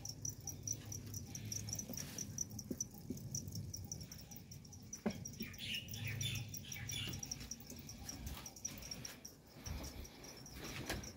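Steady high-pitched insect chirping, about five chirps a second, over a low rumble.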